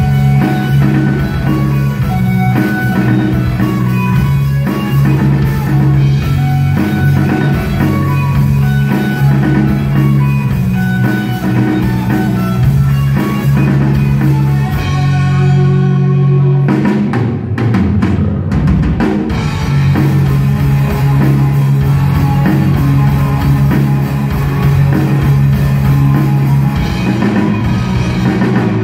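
Live rock band playing with electric guitars, bass guitar and drum kit. About fifteen seconds in the band drops to a low held note with a few sharp hits, then comes back in at full about four seconds later.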